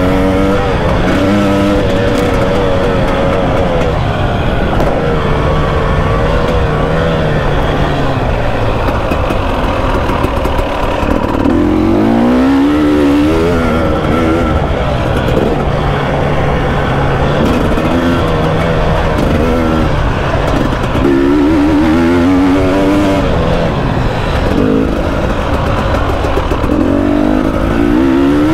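KTM 300 two-stroke dirt bike engine being ridden, revving up and down continuously as the throttle opens and closes, with its pitch climbing sharply several times.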